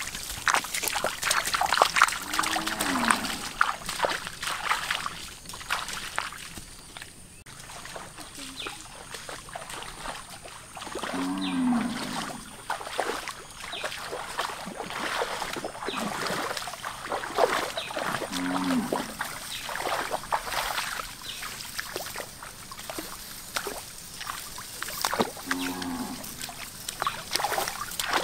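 Splashing footsteps of people wading through shallow muddy water. An animal's short low call, falling in pitch, is heard four times in the background.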